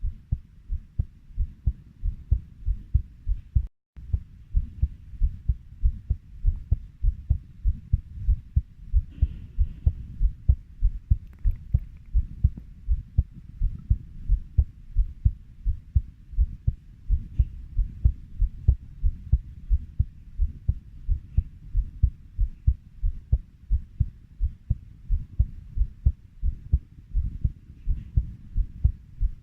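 Human heartbeat at a steady 90 beats per minute, each beat a low double thump (lub-dub), repeating evenly. The sound drops out for a split second about four seconds in.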